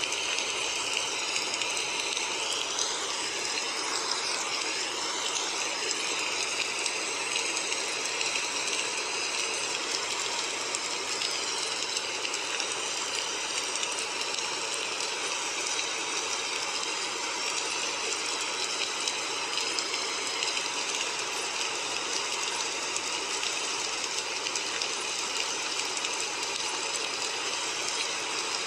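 Steady hissing, rushing noise, strongest in the upper range, with faint wavering tones running through it: the noise bed of a subliminal audio track.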